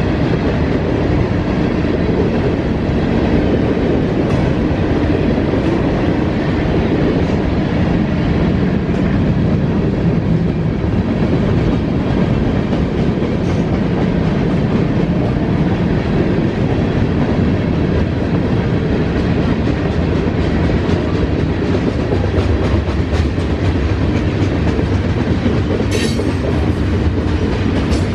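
Freight train cars, covered hoppers and boxcars, rolling past at close range: a steady loud rumble with the clickety-clack of wheels over rail joints and the crossing, and a sharp click near the end.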